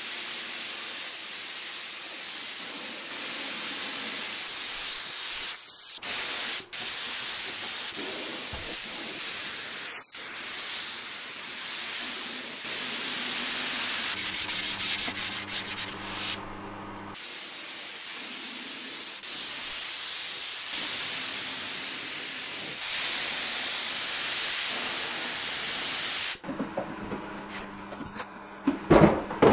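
Spray gun hissing steadily as it sprays finish onto a wooden dresser, broken by a few short pauses between passes. Near the end the hiss stops, and a couple of sharp knocks follow as the cabinet is handled.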